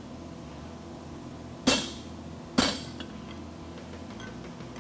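Two sledgehammer blows, a little under a second apart near the middle, striking a handled top tool held on a red-hot steel bar over the anvil. Each is a sharp metallic hit with a brief ring.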